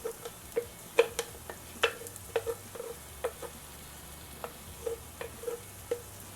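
Metal spoon clinking and scraping in a frying pan as ground mint paste is stirred into sautéed onions, over a faint sizzle. The clinks come irregularly, thickest in the first three seconds and sparser after.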